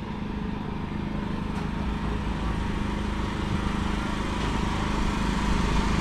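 A river party boat's engine idling steadily, slowly growing louder.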